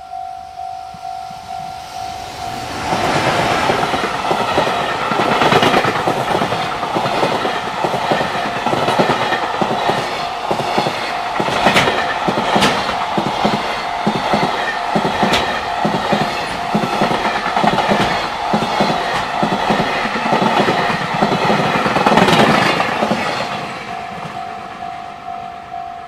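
A level-crossing alarm dinging about twice a second, then drowned out about three seconds in as a long freight train passes, its wheels clattering rhythmically over the rails for some twenty seconds. The train's noise fades near the end and the crossing alarm is heard again.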